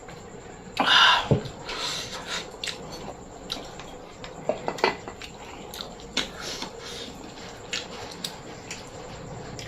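Close-miked eating: a loud, crisp bite about a second in, then chewing with scattered crunches and small clicks.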